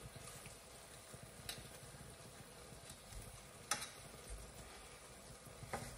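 Chicken and capsicum frying quietly in a pan with a faint sizzle, being stirred, with three sharp clicks of the stirring utensil against the pan.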